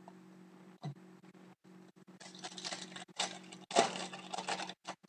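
Trading cards being handled and slid against one another, a short click about a second in, then a spell of rustling and light scraping that is loudest near the end, over a faint steady low hum.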